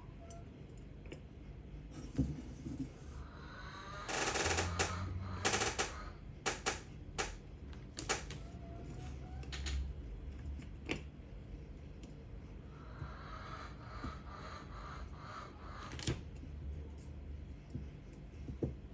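Small metal carburetor parts clicking and tapping on a workbench as a Yamaha XT500 carburetor is reassembled, with irregular sharp clicks and a louder stretch of handling noise about four seconds in.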